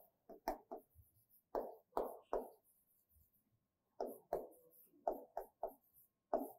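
A series of about a dozen short, faint taps in small irregular clusters, with a pause of about a second in the middle.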